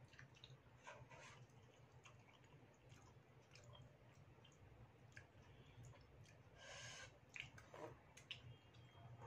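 Faint eating sounds: noodles slurped and chewed, with a few light clicks of a metal fork and spoon against the bowl. A brief slurp comes near the end.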